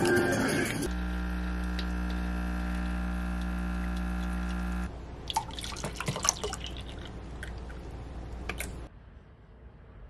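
A steady machine hum for about four seconds, then water poured from a plastic bottle into a glass cup, trickling and splashing with small clinks for about four seconds.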